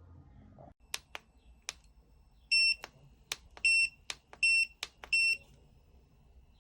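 Sharp plastic button clicks mixed with four short, high electronic beeps about a second apart, typical of pressing the control buttons on a hair crimper to step through its temperature settings.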